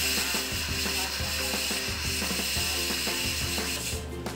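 Pressure cooker whistling: steam hissing out from under the weight valve on the lid, which signals the cooker has reached pressure. The hiss breaks off briefly near the end and then starts again.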